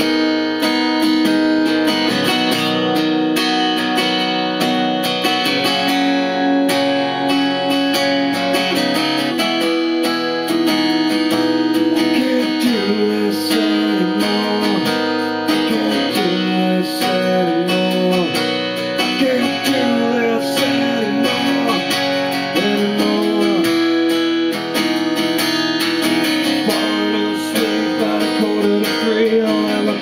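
Acoustic guitar strummed in a steady rhythm, with a man singing over it, recorded through a compact digital camera's built-in microphone.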